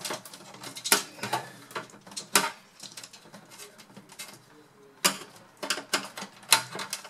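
Irregular sharp clicks and knocks of plastic against the metal chassis as hands push in the stiff plastic latches and pry a plastic part out of a Power Mac G3 Blue & White case. The clicks come in a cluster, pause for about two seconds, then come again from about five seconds in.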